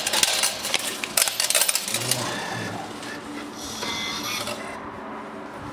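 Railway ticket vending machine printing and dispensing tickets: a run of rapid clicks, then a steady mechanical whirring from about two seconds in.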